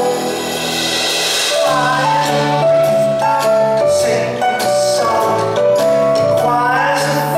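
Live rock band playing in a concert hall, with a singer holding long notes; lower notes come in about two seconds in.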